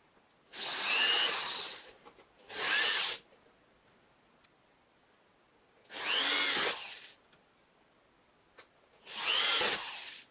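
Electric drill run in four short bursts of about a second each, its motor pitch rising as it spins up on each trigger pull.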